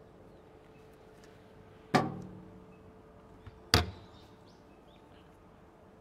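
Two sharp metal clunks from the stainless-steel panels and door of an explosion-proof refrigerator cabinet being handled, about two seconds in and again a couple of seconds later; the first rings on briefly.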